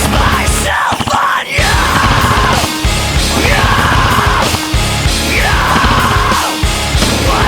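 Heavy metal music with a loud bass-heavy beat and long held, yelled vocal lines.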